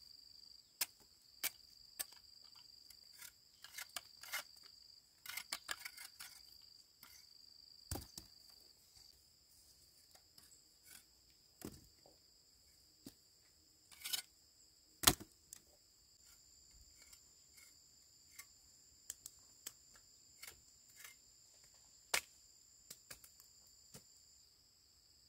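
Insects chirring steadily in two high tones, with scattered sharp clicks and knocks throughout, the loudest about fifteen seconds in.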